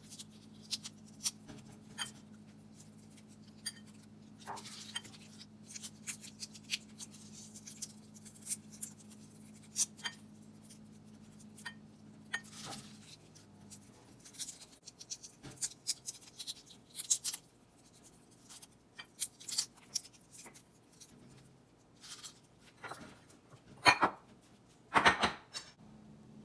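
Irregular small clicks, scrapes and clinks of hands and utensils working in a bowl, with a couple of louder clinks near the end: raw shrimp being shelled and deveined. A low steady hum runs underneath and stops about halfway through.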